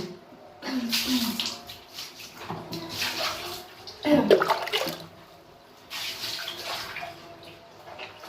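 Water splashing and pouring in irregular bursts, with quieter gaps between.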